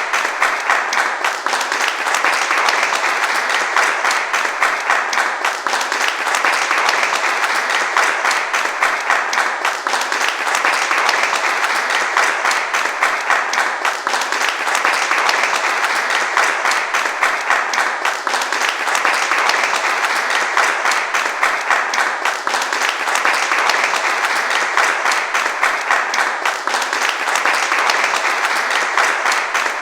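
Large audience applauding steadily: many hands clapping at once in a dense, even wash with no let-up.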